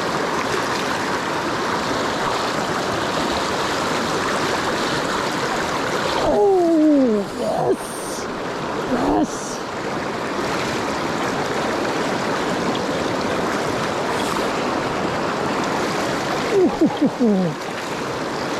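Creek water rushing steadily. A few short falling tones cut in around six seconds in, again near nine seconds, and once more near the end, while the rushing briefly dips.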